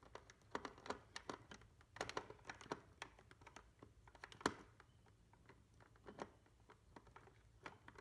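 Faint, irregular small clicks and scrapes of a screwdriver turning a terminal screw on a fire alarm pull station, clamping a wire in place, with the loudest click about halfway through.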